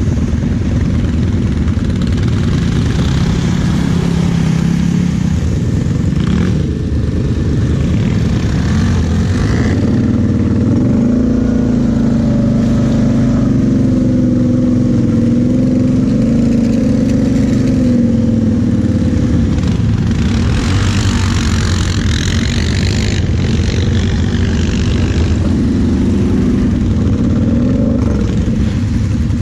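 Kawasaki KFX 700 V-Force quad's V-twin engine heard from on board while riding, its revs and pitch rising and falling as it moves through mud.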